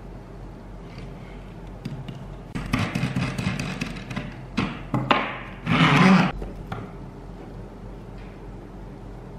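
Hands working freshly wound copper coils and their thin divider plates off the threaded shaft of a hand coil-winding machine: a few short scraping, rattling bursts, the loudest about six seconds in.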